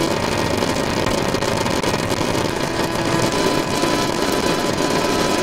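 Black MIDI playback through a Steinway grand piano soundfont, with nearly every key sounding at once at enormous note density. The piano notes merge into a loud, steady, dense wall of noise.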